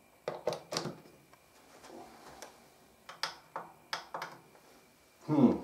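Sharp clicks of the Pioneer receiver's front-panel power button being pressed again and again, three in quick succession just after the start and several more around three to four seconds in, with the unit failing to power up. Near the end, a short vocal grunt that falls steeply in pitch.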